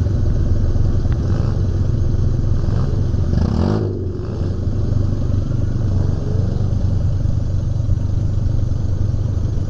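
Off-road dune buggy engine running steadily during a ride, easing off briefly about four seconds in.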